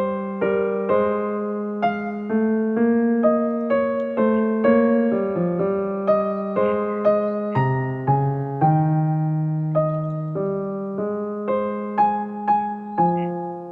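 Soft background music of keyboard notes, each struck and left to fade, in a steady flowing pattern.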